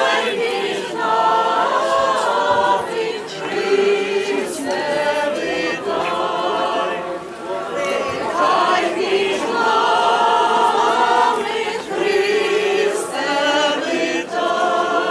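A church choir singing a liturgical hymn a cappella, with several voices together in sung phrases of one to three seconds and short breaks between them.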